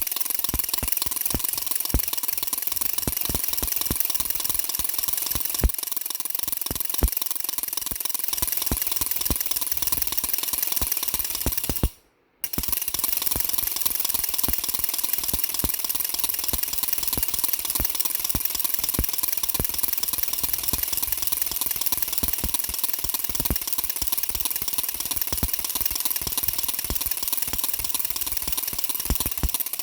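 Baby rattle being shaken continuously: a dense, rapid clatter of clicks, broken by a short pause about twelve seconds in.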